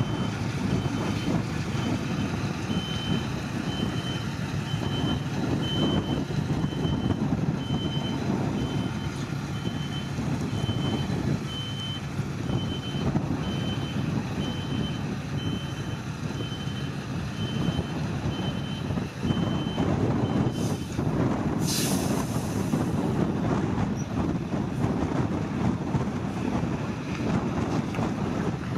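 A heavy diesel truck runs steadily while its reversing alarm beeps about once a second. The beeping stops about three-quarters of the way through, followed by a short hiss of air.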